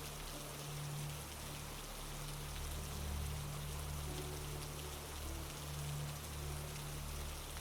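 Steady rain falling, an even patter with no breaks, over a low steady hum.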